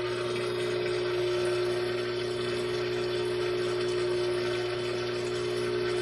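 Brastemp top-loading washing machine's drain pump running with a steady hum as the machine pumps out its water.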